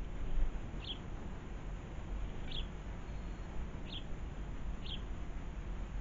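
House sparrows giving short single chirps, four in all, spaced about one to one and a half seconds apart, over a steady low background rumble.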